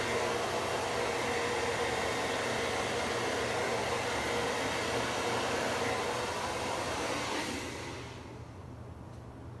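Hand-held hair dryer running steadily, a rushing blow with a faint motor whine, switched off about eight seconds in.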